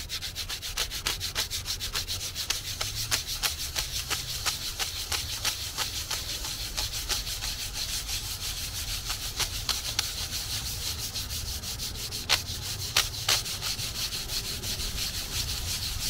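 Fine-grit sandpaper rubbed by hand back and forth over a PC case faceplate, a steady rasping at about four strokes a second, with a couple of sharper, louder scrapes near the end. The surface is being scuffed to a dusty look as prep for paint.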